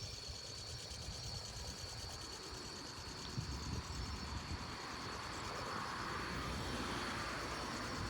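Sea surf washing, swelling up near the end, over a low rumble of wind, with a steady high-pitched tone running through it.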